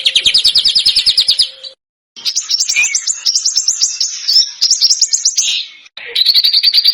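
Small songbird singing fast, harsh runs of rapidly repeated high notes, about a dozen a second. The song comes in three phrases with brief breaks; the middle phrase is more varied and jumbled.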